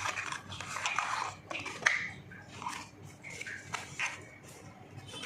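Smartwatch box and packaging being handled: irregular crinkling and sharp clicks.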